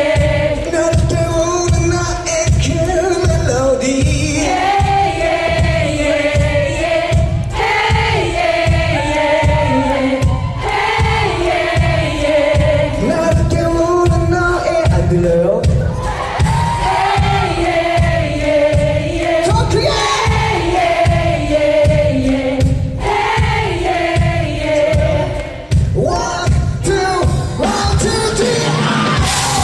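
Live pop concert: a male lead vocalist singing over a full band with a driving, steady kick-drum beat of about two beats a second, heard through a large hall.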